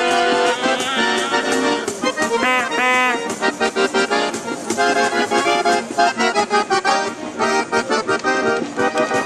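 Piano accordion playing a lively tune, with a small hand drum beating along. A brief wavering, whistle-like tone comes in about two and a half seconds in.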